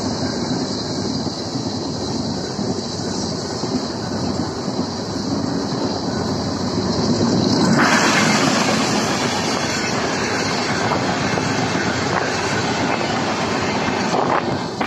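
LHB passenger coaches of an express train passing at speed on the adjacent track, with a steady, loud rush of wheel-on-rail noise. The noise turns brighter and louder about halfway through and starts to fall away right at the end as the last coaches go by.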